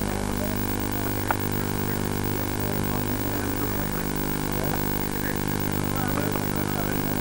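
A steady low hum with an even hiss over it, and a single sharp click about a second in.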